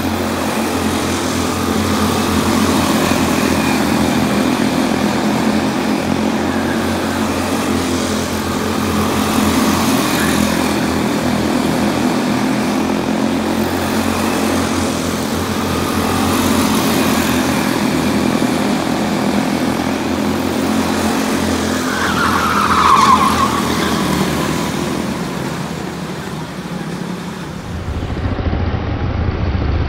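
Several quarter midget race cars' small single-cylinder engines buzzing as they lap a short oval, their pitch rising and falling through the turns. About 23 seconds in, one car passes close, louder, with its pitch dropping as it goes by.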